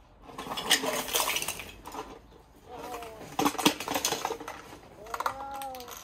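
Rustling and clinking of a dome tent's rainfly and fittings being handled and fastened over the tent, in irregular clicks and knocks.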